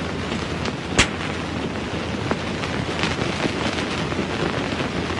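Steady hiss of an old film soundtrack, dotted with faint crackles and one sharp pop about a second in.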